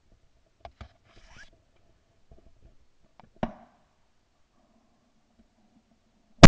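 A few faint clicks and knocks as the shotgun is swung onto passing wood pigeons, one a little louder about three and a half seconds in, then a single loud shotgun shot right at the end.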